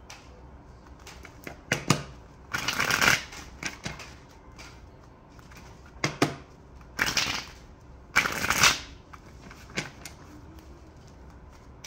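A tarot card deck being shuffled by hand: three short bursts of shuffling, each under a second, with a few light clicks of the cards in between.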